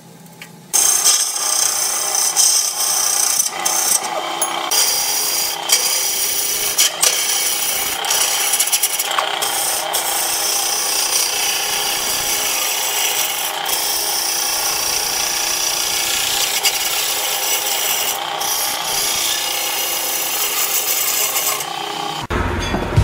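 A turning tool scraping into reddish hardwood spinning on a wood lathe: a steady, rasping scrape that starts suddenly about a second in and is broken by a few short gaps, with the lathe's electric motor running underneath.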